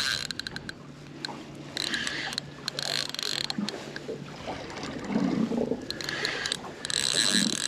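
A fishing reel working in two spells of whirring, clicking gear noise as a hooked fish is played toward the boat.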